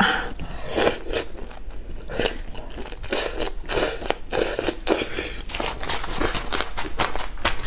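Close-miked eating of spicy boneless chicken feet: repeated crisp crunches and chewing as the cartilage is bitten through, a few crunches each second.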